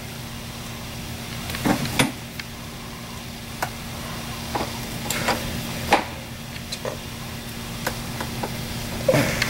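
Scattered metallic clicks and knocks of a wrench working the nut on an inboard boat engine's rear motor mount, over a steady low hum.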